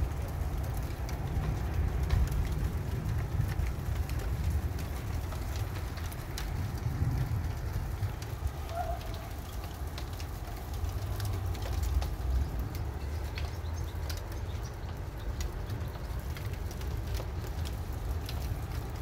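Gusty wind rumbling on the microphone during a thunderstorm, with scattered faint ticks and a short bird call about nine seconds in.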